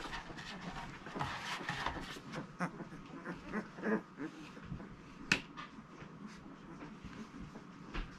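Very young basset hound puppies, about two weeks old, making short high squeaks and whimpers while being handled, with rustling and a sharp click about five seconds in.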